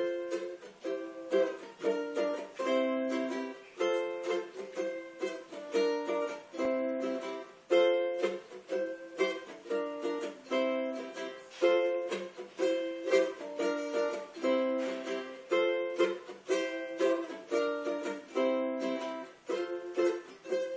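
Two ukuleles playing chords together in a steady, even rhythm, an instrumental intro.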